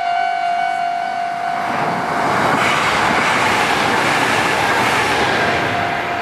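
Kintetsu electric train passing over a level crossing: its running noise builds about a second and a half in and holds until near the end. The crossing's melodic electronic warning tone keeps sounding underneath.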